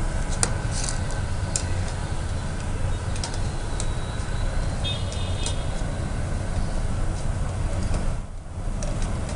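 Deep-frying oil sizzling in a kadai as fried peanut pakodi are scooped out with a metal ladle, with a few sharp clinks of metal on the pan, over a steady low rumble.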